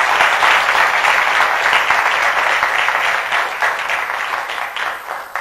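Audience applauding, many hands clapping in a dense patter that thins out and fades near the end.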